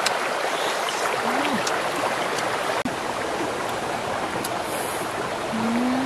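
A rocky stream running steadily over stones, a constant rushing wash of water.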